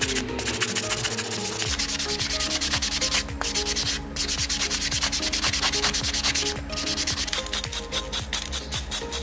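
Sandpaper rubbed back and forth over a small metal model-car part in quick scratchy strokes.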